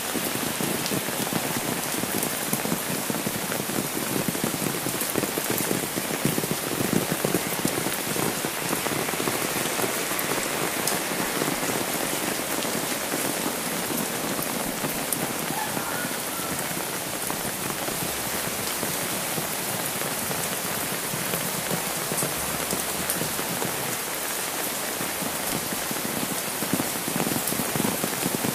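Steady heavy rain: a dense, even patter of drops falling on an umbrella held overhead and on the wet road, without a break.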